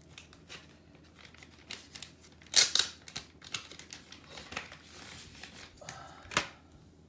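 Handling noises: rustling and crinkling with scattered clicks and knocks, loudest about two and a half seconds in and again near the end.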